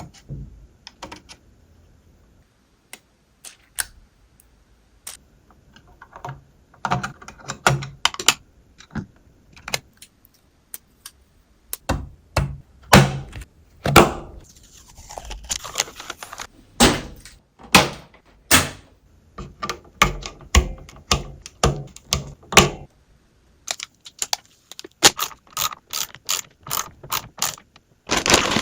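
Computer parts being handled and fitted together in a PC build: a long series of sharp plastic and metal clicks, snaps and knocks with a few short scrapes. The sounds are sparse at first and grow denser and louder about halfway through, ending in a quick string of clicks.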